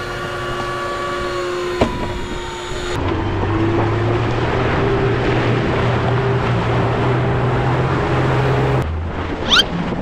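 Fishing boat's engine droning steadily at sea, with wind and water noise. A short rising squeak comes near the end.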